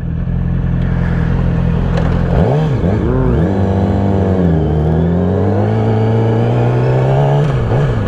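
Sport motorcycle engine idling steadily at a stop; about two and a half seconds in it revs and pulls away, the pitch climbing and dropping through gear changes, then rising steadily as it accelerates.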